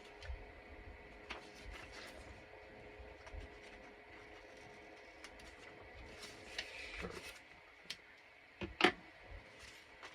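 Paper and craft materials being handled: faint rustling and light taps, a brief swish about seven seconds in, then a sharp clack about nine seconds in. A faint steady hum lies underneath.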